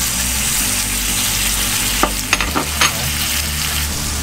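Tofu, luncheon meat and pork slices sizzling in a hot frying pan as they are stirred with chopsticks. There are a few sharp knocks about halfway through, over a low steady hum.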